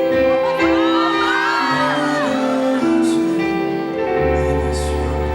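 Live ballad accompaniment played through a hall's sound system, with sustained chords. A high voice wavers up and down over it about a second in, and a deep low note enters near the end.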